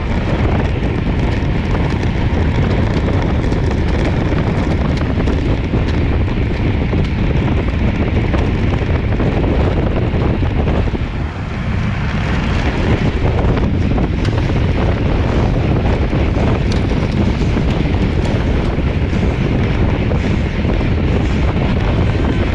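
Loud, steady wind rushing over the microphone of a camera on a road bike riding at about 33 to 38 mph. It eases briefly about eleven seconds in.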